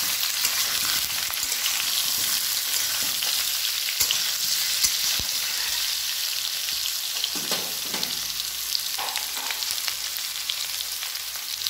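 Diced pumpkin and potato sizzling in hot mustard oil in a steel kadai, stirred with a metal spatula that scrapes the pan and knocks against it now and then, sharply about 4 and 5 seconds in.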